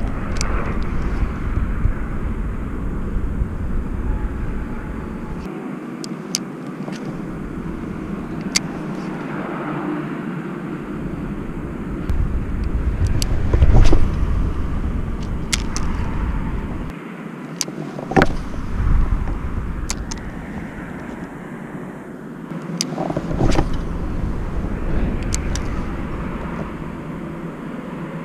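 Wind rumbling and buffeting on the camera microphone, coming and going in gusts, loudest about fourteen seconds in. Scattered sharp clicks come from a spinning reel and rod being handled while casting and retrieving.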